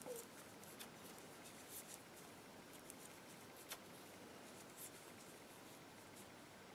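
Faint, scattered clicks of knitting needles tapping together as stitches are worked, over quiet room tone.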